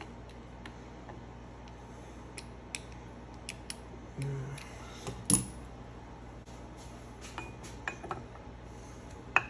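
Scattered small metallic clicks and clinks of slip-joint pliers gripping and turning the sight glass fitting on a pressure-washer pump's crankcase, with a louder click about five seconds in and another near the end. A brief low hum comes about four seconds in.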